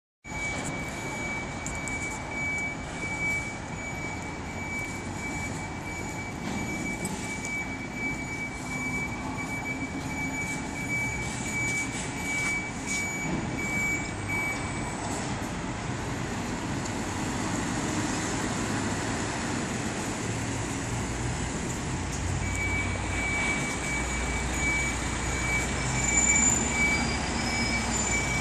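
Articulated lorry reversing, its reverse alarm beeping steadily over the diesel engine and street noise. The beeping stops for several seconds around the middle and then starts again, and the engine rumble grows stronger toward the end.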